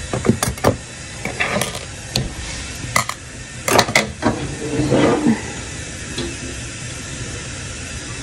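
Kitchen items knocking and clattering as they are handled and set down on a countertop, a handful of sharp strikes in the first five seconds, then only a steady low background hiss.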